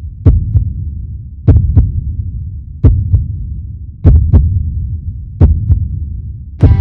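Heartbeat sound effect: slow, evenly paced double thumps (lub-dub), about one pair every 1.3 seconds, over a low steady hum.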